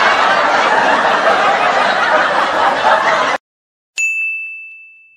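Laughter sound effect that cuts off suddenly about three and a half seconds in; after half a second of silence, a single bright ding rings out and slowly fades.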